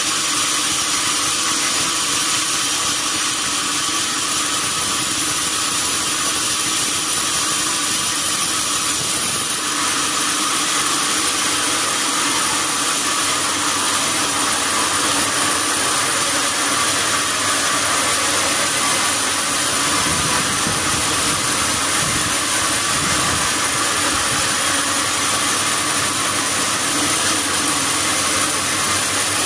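Sawmill machinery running steadily while durian logs are sawn: a loud, even mechanical noise with a steady high whine.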